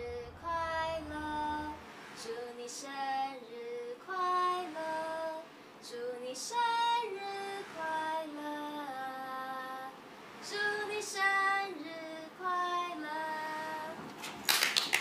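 A woman singing a slow melody, holding each note and stepping from one pitch to the next. A short burst of noise comes near the end.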